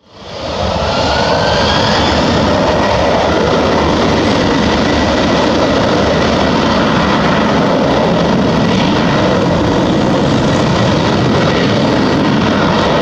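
Twin jet engines of an Airbus A330-200 running loud and steady on the runway, with a faint rising whine in the first couple of seconds.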